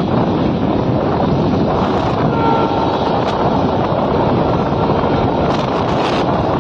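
Wind buffeting the microphone, a loud steady rush with fluttering low rumble. Faint high tones sound briefly about two and a half seconds in.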